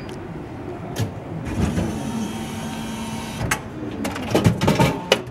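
Ice cream vending machine dispensing after its selection button is pressed: a short beep, then the vending mechanism whirs steadily for about two seconds, followed by a string of clunks and rattles as the item drops toward the delivery door.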